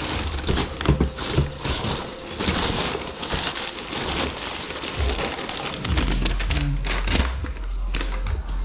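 Hands rummaging through crumpled newspaper and foam packing peanuts in a cardboard box: continuous rustling and crinkling with sharp crackles, and dull low bumps of handling in the second half.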